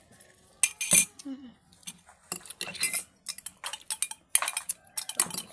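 Metal spoon clinking and tapping against a dish, a quick, irregular run of sharp clinks with the loudest knock about a second in.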